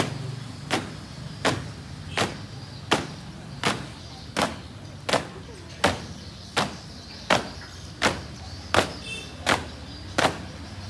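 A flag-raising squad marching in step on a concrete yard: synchronized boot stamps striking together at an even pace, about fourteen of them, a little under one a second.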